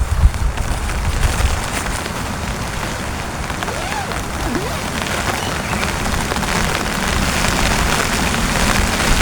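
Heavy rain pattering steadily on a tent, a dense hiss of many small drop ticks, with low wind gusts buffeting the microphone just at the start.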